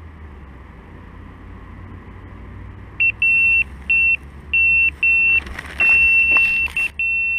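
Electronic carp bite alarm beeping loudly, starting about three seconds in: a run of uneven short and longer high-pitched tones, the pattern of line being pulled through the alarm on a take. A low rumble of wind on the microphone runs underneath.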